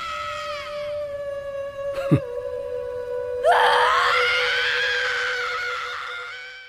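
A boy's anguished scream: a first cry dies away, then a loud scream rises about three and a half seconds in and fades out near the end. A steady high tone is held underneath, with a short sharp hit about two seconds in.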